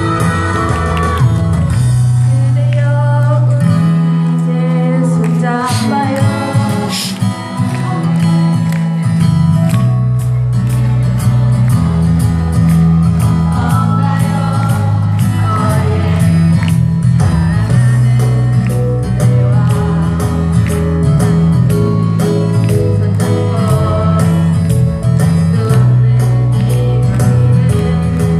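Loud amplified music with several singers performing over a steady drum beat and held bass notes, played through a PA system.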